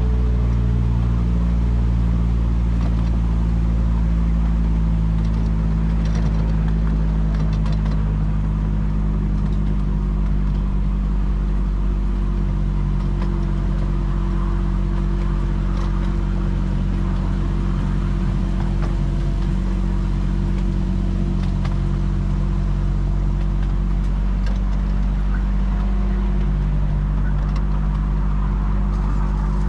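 Engine of a 10.25-inch gauge miniature railway locomotive running steadily, its note shifting slightly a couple of times.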